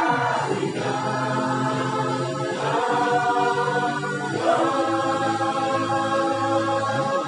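Music with a choir singing long, held chords that change about every two seconds.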